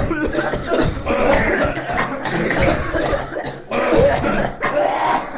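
Several people sick with flu coughing, with overlapping coughs following one another in quick succession.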